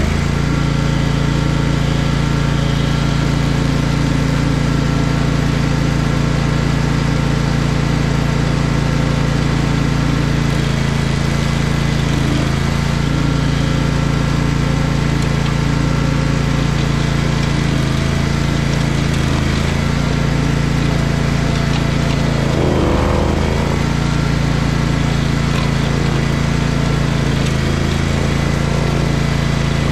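Barreto 30-SG stump grinder's Vanguard engine running steadily under load while its cutter wheel grinds into a tree stump. The sound wavers briefly about 23 seconds in.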